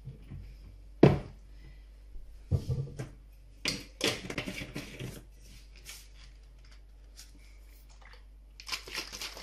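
Knocks and clatter of kitchen things being handled, most likely the personal blender cup being put together: a sharp knock about a second in, more clunks, a burst of clatter about four seconds in, and more handling near the end.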